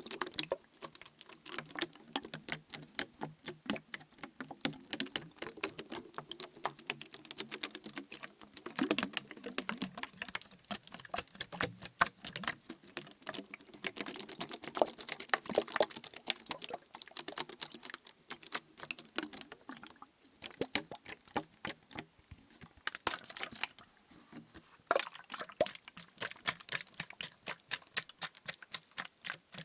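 Quick, dense tapping on a plastic bottle filled with liquid, the taps coming in clusters with short pauses, while the liquid sloshes inside.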